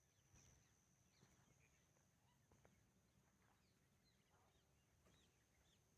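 Near silence with faint, distant bird calls: short high chirps that drop in pitch, scattered through, over a thin steady high whine.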